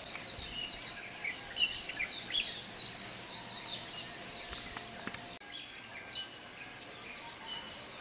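Birds chirping in a dense chorus of short, high, falling notes, several a second. About five seconds in the sound changes abruptly and the chirps become sparser.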